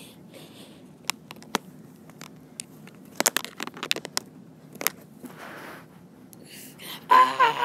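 Handling noise close to the microphone: scattered taps, clicks and crackles as hands move a plush puppet and a toy figure and brush over the camera. Near the end comes a short, loud, high-pitched voice cry, the loudest sound here.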